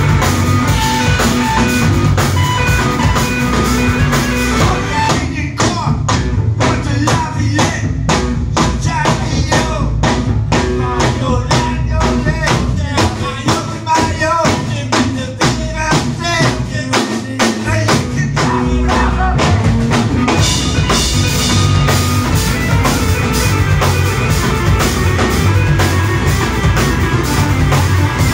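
A small band playing live on drum kit, electric guitar and keyboard, with a steady drum beat most prominent through the middle stretch.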